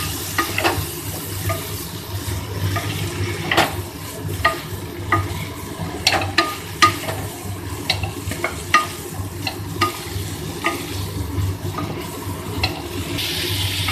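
Spatula stirring chickpeas and boiled potato through thick masala in a non-stick pan, with frequent short scrapes and knocks against the pan over a low, steady frying sizzle.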